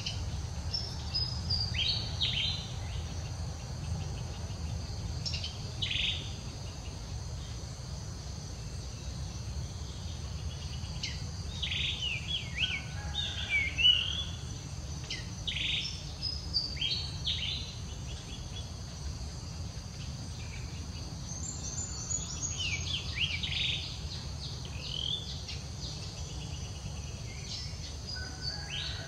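Outdoor ambience of birds chirping in short calls and quick falling whistles, many times over, above a faint steady insect drone and a low steady rumble.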